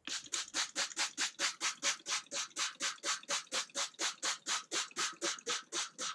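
Hand-held trigger spray bottle squeezed over and over, about four short hissing spritzes a second, misting water onto laid-out merino-silk fibre to soak it through for wet felting.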